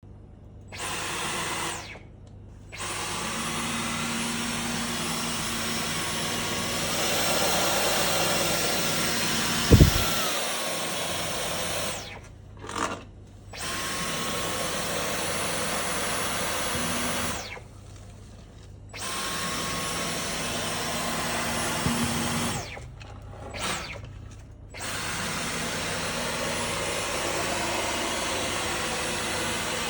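Dyson V15 Detect Absolute cordless stick vacuum running with a steady high whine. The motor stops and starts again four times, and its tone steps up and later back down around the middle. A single sharp knock sounds about ten seconds in.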